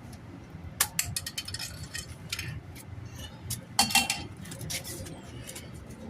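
Sharp metallic clinks and knocks from a wheel being handled on a wheel balancer: a few scattered ones, then a louder, ringing cluster about four seconds in.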